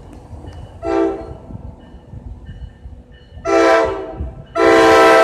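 Train's air horn blowing a chord: a short toot about a second in, then two long blasts from about three and a half seconds, the last running on past the end. A low rumble lies underneath.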